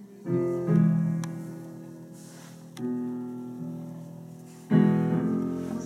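Instrumental music: sustained chords struck three times, early, just before the three-second mark and near the end, each left to ring and slowly fade.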